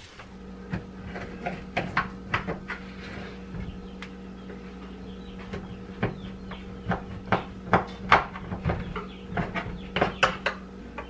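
A knife cutting a set block of homemade suet (fat mixed with scratch grains) in a metal cake pan, with irregular clicks and scrapes as the blade strikes the pan, more frequent in the second half. A steady low hum runs underneath.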